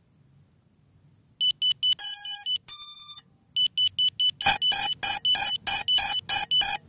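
Electronic startup beep sequence from an FPV quadcopter being powered up: three short beeps, two longer tones at different pitches, a few more short beeps, then eight louder beeps at about three a second.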